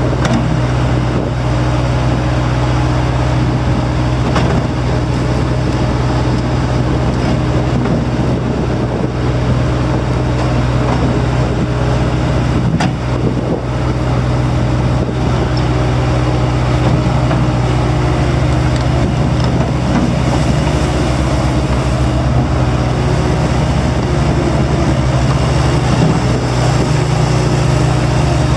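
Bobcat T190 skid steer loader's diesel engine running steadily at a constant speed, with a few faint knocks over it.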